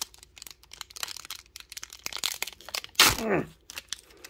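Foil booster pack of Pokémon trading cards being torn open and crinkled by hand: a run of quick crackles and crinkles. About three seconds in, a short voiced sound falling in pitch.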